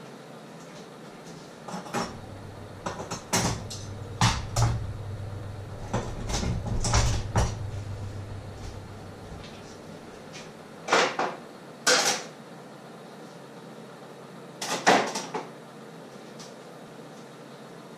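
Scattered knocks and clacks, several in quick groups, with a low hum underneath from about two to nine seconds in.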